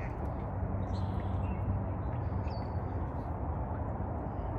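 Steady low outdoor rumble with a faint constant hum, and a few faint bird calls about a second in and again around two and a half seconds.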